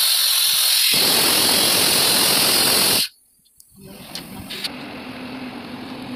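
Compressed air blasting out of a goods train's air-brake pipe hose in a loud, steady hiss that cuts off abruptly after about three seconds. After a short gap comes the quieter, steady running rumble of the train, with a low hum.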